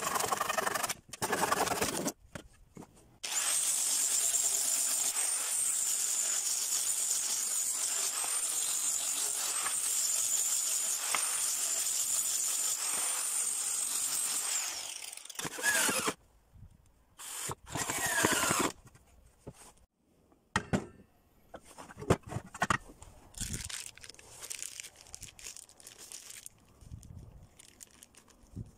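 Hand saw strokes through a wooden board, then an angle grinder running against a wooden block for about twelve seconds, its high whine wavering, before it winds down. A brief burst of the tool follows, then scattered clicks and knocks of a steel door hinge being handled.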